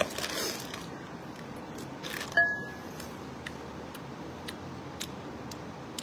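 Thin plastic takeaway bag crinkling as it is handled, with a sharper knock about two seconds in, then scattered soft clicks and smacks of eating.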